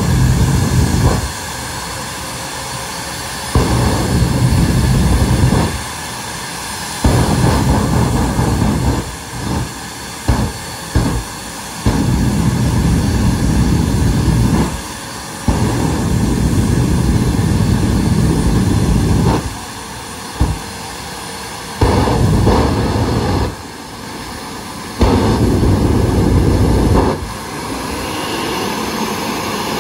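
Jet funny car's jet engine running in place with a steady high whine, its afterburner lit again and again: about ten loud bursts of flame noise, most lasting one to four seconds, with a few quick short blips around ten seconds in.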